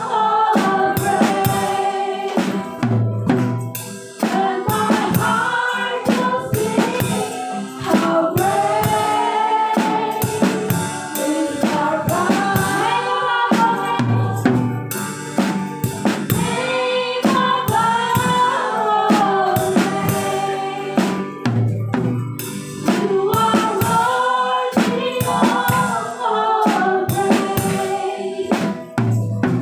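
Worship song: a group of voices singing together over a band with a drum kit keeping a steady beat.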